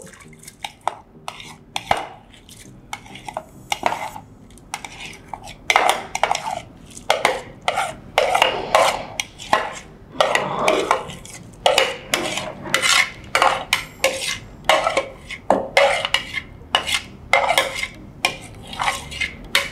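A spoon scraping and clinking against cookware as seasoned, par-cooked rice is spooned into a rice cooker pot of boiling water. It is a long run of quick, irregular scrapes and knocks that gets busier about six seconds in.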